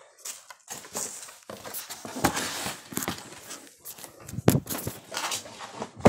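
Crinkling and rustling of packaging, with a few sharp knocks, as a hoverboard is packed back into its cardboard box. The loudest knock comes about four and a half seconds in.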